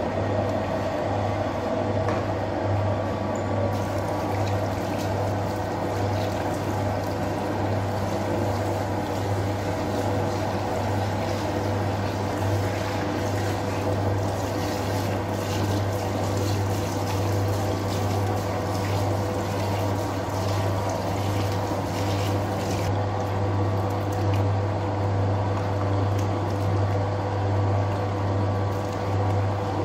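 Electric tub dough-kneading machine running steadily, kneading a batch of sangak bread dough, with a low steady motor hum. From about 4 s in until about 23 s in, water runs from a tap into the tub with a splashing hiss.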